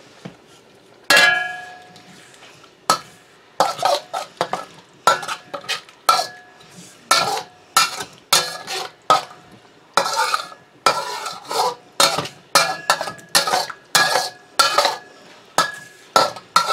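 A long-handled metal wok ladle stirring and scraping around a steel wok, clanking against the metal a little over once a second, some hits leaving a short metallic ring. One louder clank comes about a second in.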